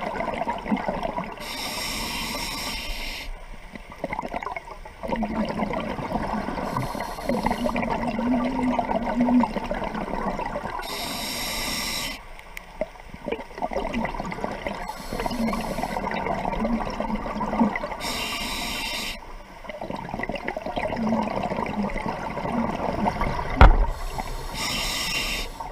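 Scuba diver breathing through a regulator underwater: a short hissing inhale six times, each followed by a longer bubbling, gurgling exhale. One sharp knock near the end.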